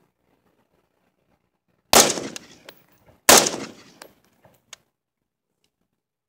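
Two shots from an AR-15 rifle, about a second and a half apart, each followed by a short echo that dies away. A few faint clicks follow the second shot.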